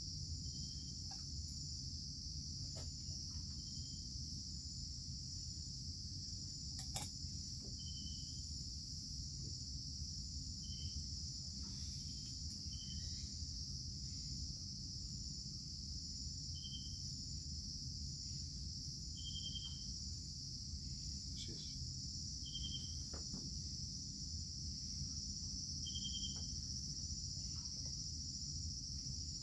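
Steady high-pitched insect chorus of crickets or cicadas, with a short chirp repeating every two to four seconds and a low steady rumble underneath.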